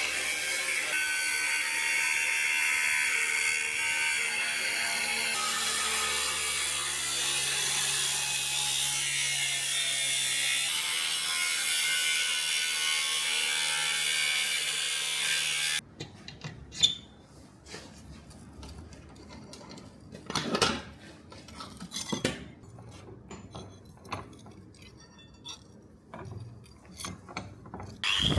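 A power tool runs steadily, its pitch stepping twice, and cuts off suddenly about sixteen seconds in. After that come scattered clicks and knocks of hand work on the workpiece.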